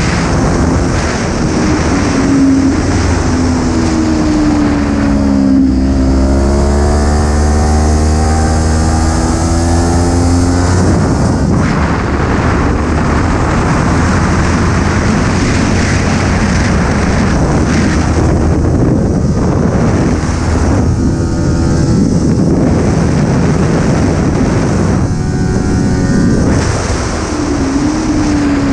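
Kawasaki Ninja 400's parallel-twin engine running at road speed under heavy wind rush over the microphone. The engine note dips about five seconds in, then climbs steadily for about five seconds as it accelerates. After that it mostly sinks under the wind, rising again briefly a couple of times later on.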